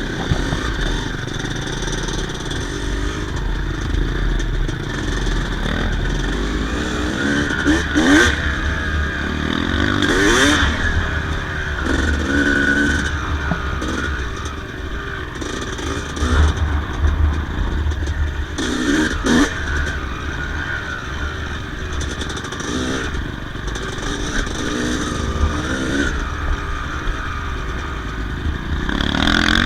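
Yamaha YZ250 single-cylinder two-stroke motocross engine being ridden, the revs rising and falling repeatedly as the throttle is opened and closed, with several sharp run-ups in pitch.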